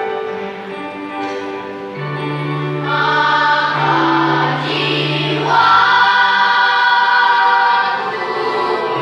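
Church choir singing in parts, with long held notes over a steady low voice part, growing louder about three seconds in.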